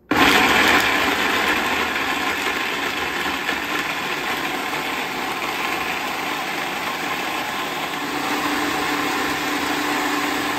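Small electric countertop blender running steadily, puréeing tomatillos, vegetables and corn with a little water into a thick sauce. It starts abruptly, and a steady hum rises above the whir about eight seconds in.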